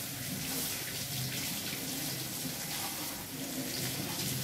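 Kitchen tap running steadily into a stainless steel sink, the water splashing over hands as onions are peeled under the stream.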